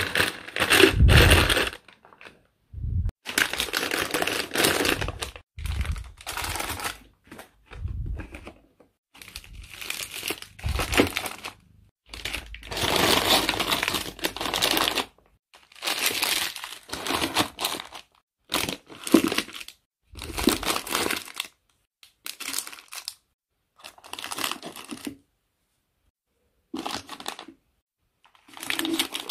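Plastic grocery packaging crinkling and rustling as items are handled, in a run of short bursts separated by brief silences.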